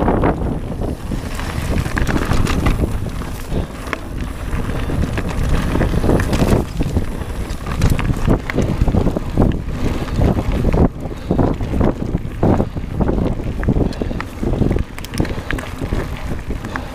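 Wind buffeting an action camera's microphone as a mountain bike rolls along a gravel trail, with tyres crunching and frequent short rattles and knocks from the bike.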